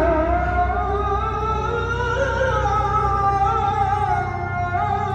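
Background music: a wavering, ornamented melody over a steady low drone.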